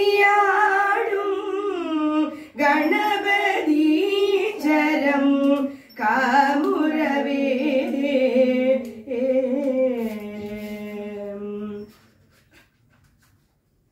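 A woman singing a devotional hymn solo and unaccompanied, in long sustained phrases. She finishes on a long held note about twelve seconds in.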